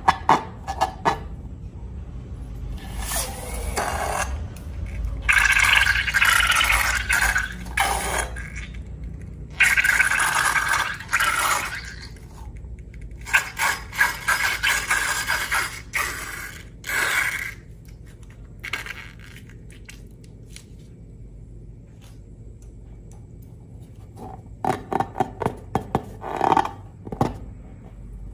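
Slime being scraped and worked in a container, in stretches of a few seconds each, with a run of quick clicks and taps near the end.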